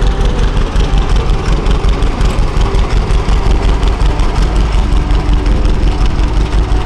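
John Deere Model D's two-cylinder engine running as the tractor drives slowly, with a steady, even pulsing beat.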